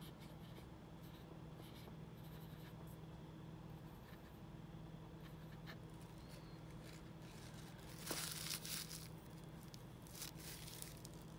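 Faint scratching and swishing of a paintbrush working paint and water, with a brief louder scrub about eight seconds in, over a steady low electrical hum.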